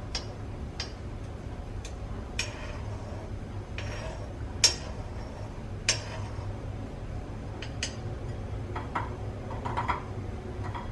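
Steel spoon clicking and scraping against an iron pan as it moves crisp, charred onion pieces in oil: irregular light clinks, two louder knocks near the middle.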